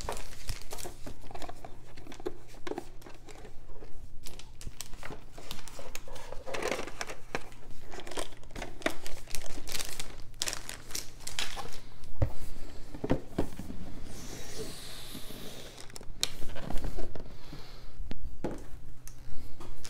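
Rustling and crinkling of cardboard sheets and plastic wrap being handled, with scattered taps and knocks of pieces going into a cardboard game box.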